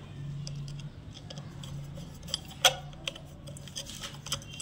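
A steel screwdriver tightening the screw of a sewing machine's shuttle stopper: scattered metallic clicks and scrapes, one sharper click about two and a half seconds in, over a low steady hum.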